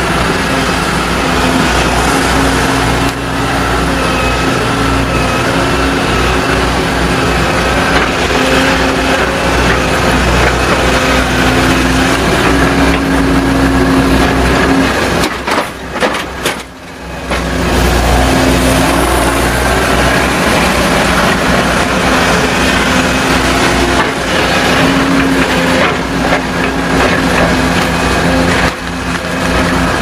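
Volvo crawler excavator's diesel engine running steadily under work as it loads a dump truck, with a brief dip in the sound a little past halfway.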